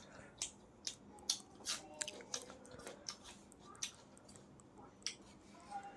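Someone chewing chicken korma and tandoori roti close to the microphone, with irregular wet mouth smacks and clicks, roughly one or two a second.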